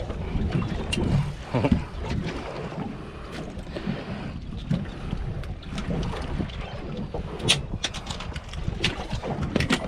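Wind buffeting the microphone aboard a small fishing boat, a steady low rumble, with a few sharp clicks and knocks in the last couple of seconds.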